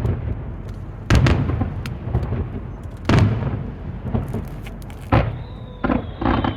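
Aerial fireworks shells bursting overhead, each a loud boom about every two seconds, with rumbling echoes and crackle between them. Quicker bursts come near the end, under a high whistle that slowly falls in pitch.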